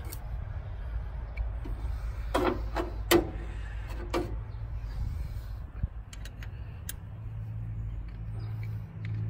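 Metal hand tools (feeler gauge, screwdriver and spanner) clicking and knocking a few times against the valve rocker arms and adjusters while the valve clearance is set. A steady low hum runs underneath and gets stronger in the second half.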